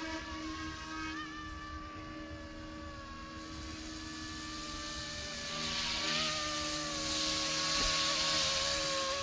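Small RC helicopter, a YXZNRC F09 Black Hawk, flying: a steady electric-motor whine whose pitch wavers slightly with throttle, over the whir of the rotors. It grows louder in the second half as the helicopter comes closer.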